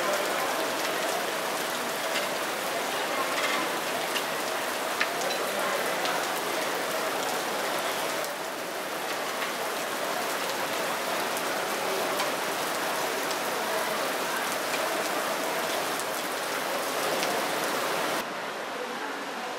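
Water falling and splashing from a small waterfall: a steady pattering hiss of many drops, like rain. Near the end it turns quieter and duller.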